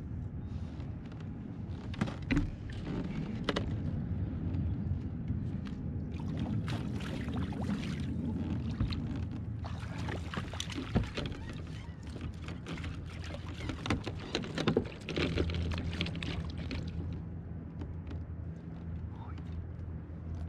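Water splashing and sloshing beside a kayak as a hooked fish is fought alongside and scooped into a landing net, in several bursts with a few sharp knocks. A steady low hum runs underneath.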